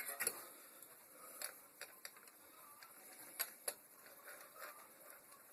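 Light metal clicks and ticks of a bicycle chain and its master link being handled, a few scattered clicks over several seconds.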